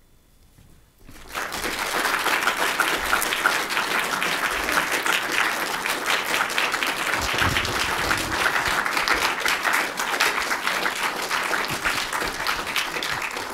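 Audience applauding at the close of a talk. The clapping starts about a second in and stays steady and dense.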